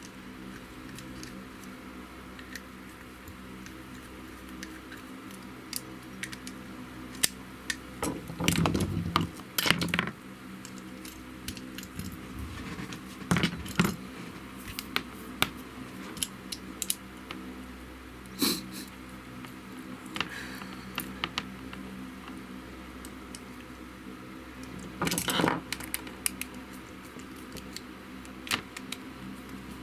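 Small plastic and metal parts being handled while a mains plug is fitted: scattered clicks, taps and rattles. Several louder bursts of handling come about a third of the way in, around halfway and near the end.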